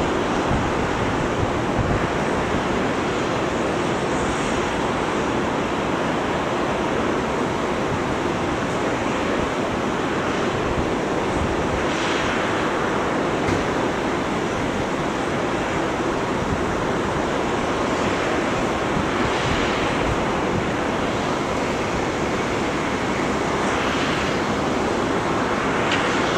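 Steady, distant rushing roar of a Boeing 737-700's CFM56 jet engines at low taxi power as the airliner turns onto the runway, with a few faint swells of higher engine whine.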